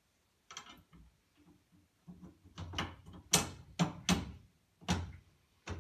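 Convertible top frame's rear arm being fitted onto its body mount by hand: a series of irregular knocks and clicks, loudest a little past the middle, as the parts are lined up for bolting.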